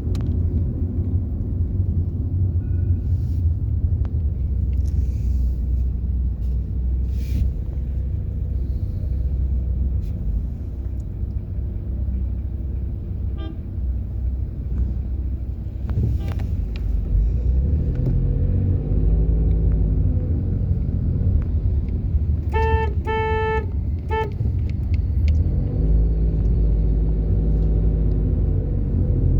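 Car driving with a steady low engine and road rumble; the engine note rises as it picks up speed. A car horn gives several short toots about three quarters of the way through.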